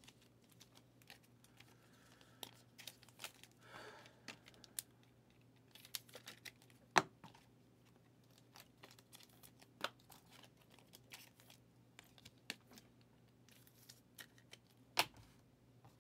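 Faint scattered clicks and taps of trading cards and card holders being handled and set down on a table, the sharpest about 7 and 15 seconds in, with a brief crinkle about four seconds in.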